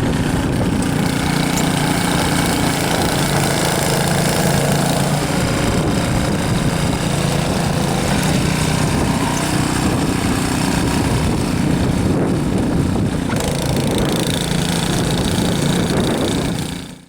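An engine running steadily under a constant rushing noise, fading out at the very end.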